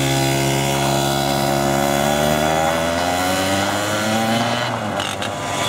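Racing kart engine running as the kart pulls away and drives off, its note sagging and then climbing again.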